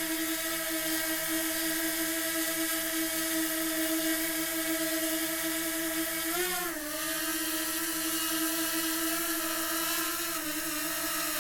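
DJI Mini 2 quadcopter's propellers whining steadily in flight, with a brief rise and dip in pitch about six and a half seconds in and small shifts in pitch near the end.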